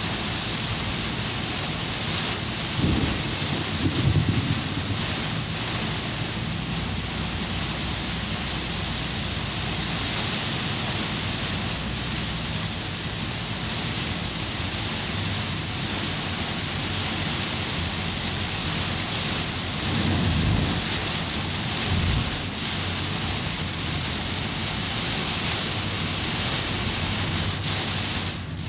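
Heavy rain drumming on a car's roof and windshield, heard from inside the cabin as a steady loud hiss. A few short low rumbles swell up about three to four seconds in and again around twenty seconds in.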